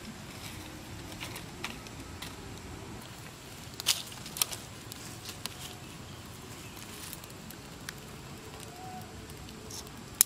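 Dry twigs crackling and snapping in scattered sharp clicks, the loudest two close together about four seconds in, over a steady low background hiss.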